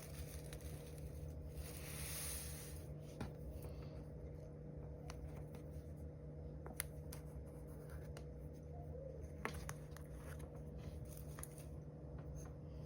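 Kinetic sand being cut and crushed: soft, faint scraping and crumbling with scattered small clicks, over a steady low hum.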